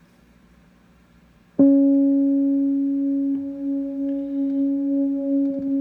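A single note that starts sharply about a second and a half in and is then held as a steady, slightly wavering drone, frozen into an endless pad by overlapping granular freeze modules in an Empress ZOIA patch.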